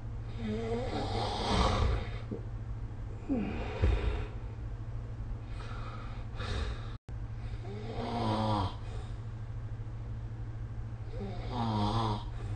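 A sleeping person snoring: four rough, pitched snores a few seconds apart over a steady low hum. The sound cuts out for an instant a little past halfway.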